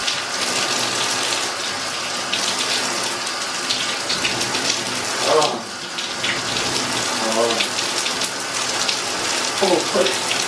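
Hand-held shower head spraying water onto hair over a bathtub: a steady hiss of running water as hair dye is rinsed out. A few short vocal sounds break in about halfway through and again near the end.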